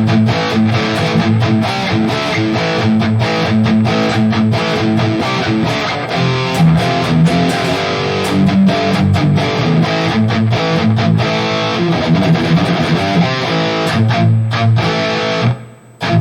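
High-gain distorted electric guitar rhythm riff played through the Valeton GP200 modeller's Mesa Dual Rectifier amp model, with an 808 Tube Screamer-style overdrive in front, a noise gate and a hall reverb. The riff is choppy, with many sharp gated stops, and the playing breaks off briefly near the end.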